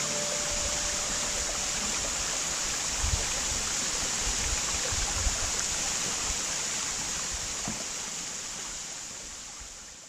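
Waterfall splashing onto rock: a steady rush of falling water, with a few soft low thumps around the middle, fading out near the end.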